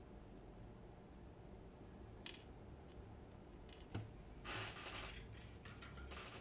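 Faint small metal clicks and a brief scraping rattle about four and a half seconds in, as the key pins are worked out of a disassembled ABUS TS 5000 pin tumbler lock.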